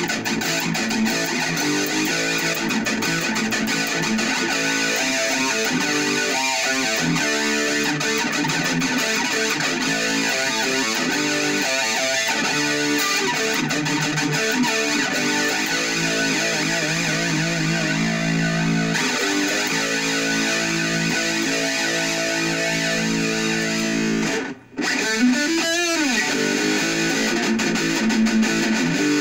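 High-gain distorted electric guitar, a Jackson KVXMG played through a Black Truck distortion pedal into an Orange Micro Dark hybrid tube amp and a small Orange PPC108 1x8 cab, playing sustained riffs and chords. About 24 seconds in the sound cuts out briefly, then a single note bends up and down in pitch.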